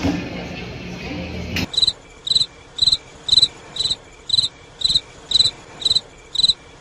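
Cricket chirping: short, regular chirps about twice a second, cutting in abruptly about two seconds in, after a short stretch of room noise. The hard cut, where the background drops away, marks the chirping as an edited-in sound effect.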